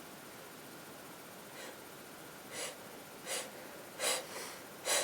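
A woman with a cold taking five quick, sharp in-breaths, starting about a second and a half in and getting louder and closer together: the catching breaths of a sneeze building up.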